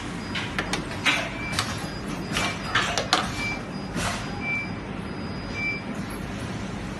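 18650 lithium cells clicking and clinking against a metal fixture as they are handled by hand: a quick run of sharp clicks over the first four seconds. Behind them, a steady machine hum with short high beeps about once a second.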